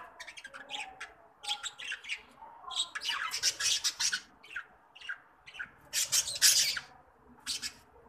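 A flock of budgerigars chattering and squawking in short, harsh bursts, loudest about three seconds in and again around six seconds.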